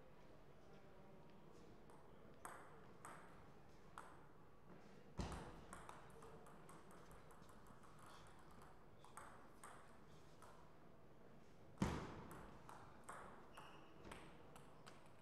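Celluloid-type table tennis ball clicking in a quiet hall: scattered single bounces and taps against the table and paddles. Two louder sharp hits, about five and twelve seconds in, are each followed by a short run of smaller clicks.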